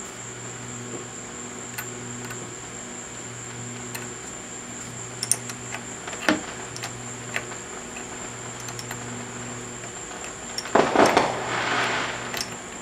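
Scattered light clicks and clinks of metal parts and tools over a steady electrical hum, then, near the end, a loud burst of fireworks crackling for about a second and a half in the background.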